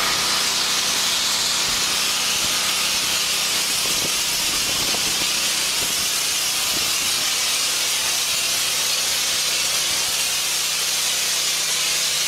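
High-pressure water jet from a Suttner ST168 foam-and-rinse spray gun and lance hissing steadily as it rinses foam off the corrugated steel side of a shipping container, with a faint steady low hum underneath.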